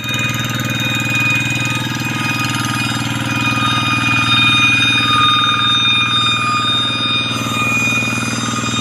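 Two-wheel walking tractor's single-cylinder diesel engine running steadily under load, with a steady high-pitched ringing whine over the engine note.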